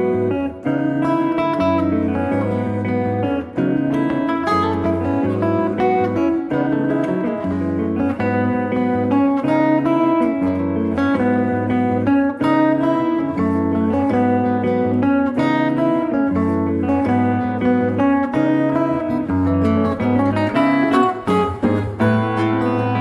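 Instrumental music on plucked strings, led by an acoustic guitar, playing steadily throughout.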